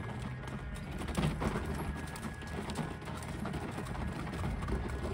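Horse's hoofbeats on a gravel path as it is ridden at a walk: a run of irregular steps.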